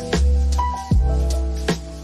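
Instrumental background music with held notes and a steady beat of deep drum hits.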